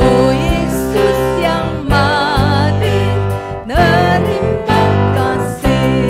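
Live worship band singing a praise song in Indonesian: several voices singing together over acoustic guitar, electric bass, keyboard and drums.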